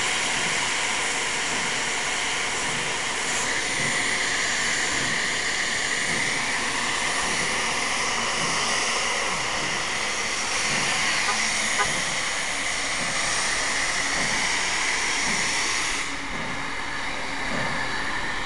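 Nickel Plate Road 765, a 2-8-4 Berkshire steam locomotive, standing and blowing off its built-up excess steam with a loud, steady hiss, so the engine can cool down. The highest part of the hiss eases a little near the end.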